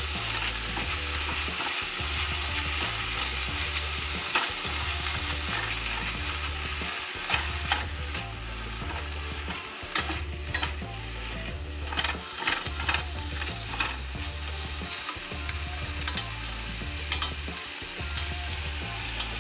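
Ground turkey sizzling in a hot nonstick skillet, with a plastic slotted spatula chopping and scraping it against the pan in repeated short strikes.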